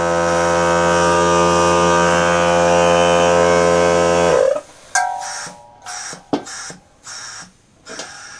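Small portable air compressor running with a steady motor hum, its outlet plugged off so it builds air. The motor is cut off about four and a half seconds in and winds down. A few scattered clicks and knocks follow.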